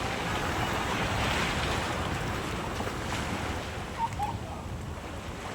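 Sea waves washing on a shore, a steady surge of surf with wind buffeting the microphone. Two short faint chirps come about four seconds in.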